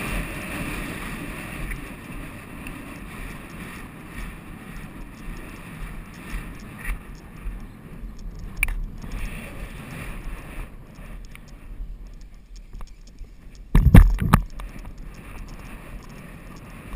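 Wind rushing over an action camera's microphone as the rider gallops a polo pony, with scattered irregular knocks. A loud cluster of several sharp thumps comes about fourteen seconds in.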